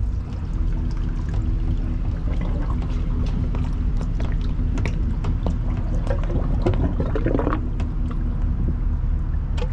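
Water splashing and sloshing around a boat and trailer at the edge of the water, with many small splashes over a steady low engine hum.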